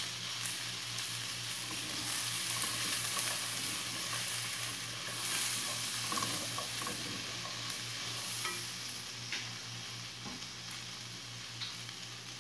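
Green beans, red onion and garlic sizzling steadily in oil in a pot while being stirred and turned with a silicone spatula, with a few light scrapes and taps of the spatula.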